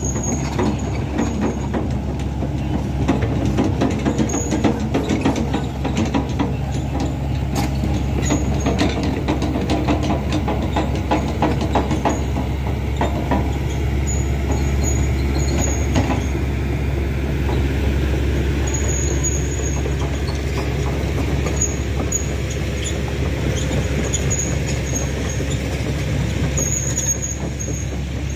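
Heavy truck engine running with a steady low drone, with rattling and crackling from the vehicle and the loose gravel surface, thickest in the first half.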